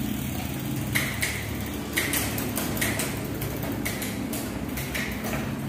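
Cosmic Matrix hybrid bicycle's chain and rear derailleur, with the crank turned by hand and the bike upside down: the chain runs over the rear cassette with a steady whir, and there is a sharp click about once a second as the gears are shifted through to check the shifting.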